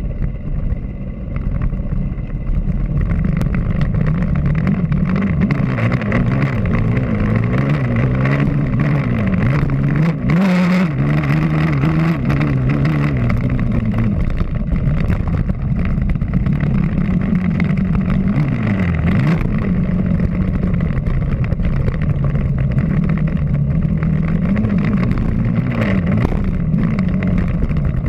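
Off-road motorcycle engine revving hard and easing off again and again while riding a dirt motocross track, its pitch rising and falling with throttle and gear changes. A brief burst of noise about ten seconds in.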